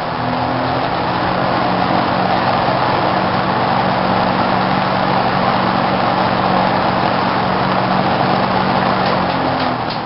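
Sears Roebuck box fan with 30 plastic blades running, a steady rush of moving air over a low motor hum. The sound starts to drop off near the end.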